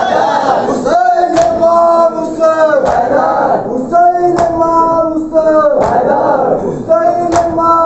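Men chanting a nauha, the Muharram lament, in long held phrases, with matam chest-beating: a sharp slap on the chest about every one and a half seconds, in time with the chant.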